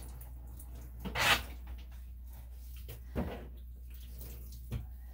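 Water splashing in a bathtub while a small dog is bathed: a few short splashes, the loudest about a second in, over a low steady hum.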